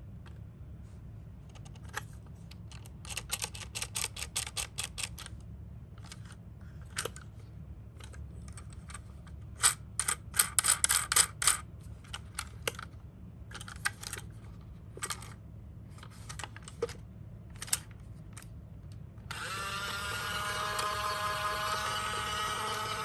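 Small hard plastic toy cars clicking and rattling in scattered bursts, with two runs of rapid clicks. Near the end a steady electronic tone from a toy's sound unit switches on and holds.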